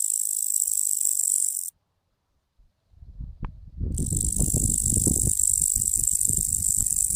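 Insect call, a locust: a continuous high, hissing buzz that cuts off abruptly about 1.7 s in and starts again about 4 s in. Low rumbling noise runs under the second stretch of buzzing.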